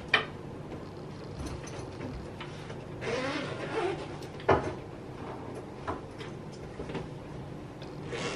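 A hard-shell suitcase being handled on the floor: a sharp click just after the start, a scraping rustle about three seconds in, then a sharp knock and a smaller click, over a steady low hum.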